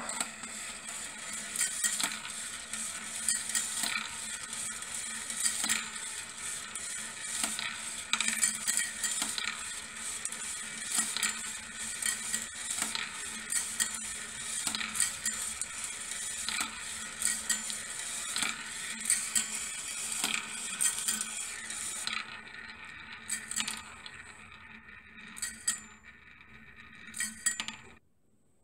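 Marble machine running: metal balls roll and clatter along bent wire rails and clink as they drop into and circle a round wooden bowl, with many irregular clicks over a steady low hum. The clicking thins out over the last few seconds and cuts off just before the end.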